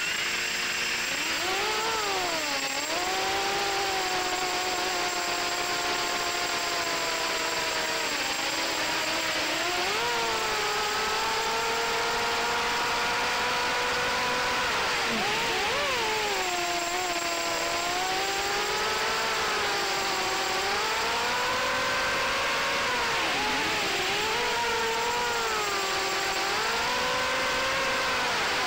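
FPV racing quadcopter's brushless motors and propellers whining, recorded onboard, with air rushing past. The pitch rises and falls continually with the throttle as it flies low.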